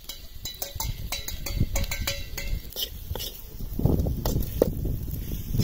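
Metal spoon clinking against an aluminium pan, with short ringing taps in the first half, then scraping as dry fish fry is stirred in the pan.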